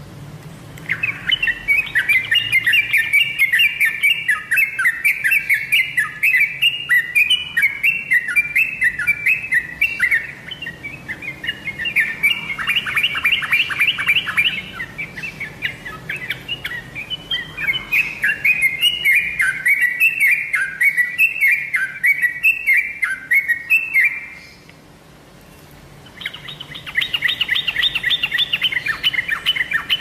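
Yellow-vented bulbul (trucukan) song played as a lure recording meant to get caged trucukan to answer: long runs of quick chattering notes stepping up and down. It pauses briefly a few seconds before the end, then resumes as a faster trill.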